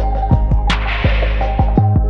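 Background music: sustained tones over a deep bass and a steady beat.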